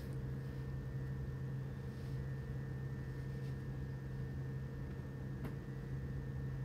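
Steady low hum of room tone with faint higher steady tones above it, and one faint click about five and a half seconds in.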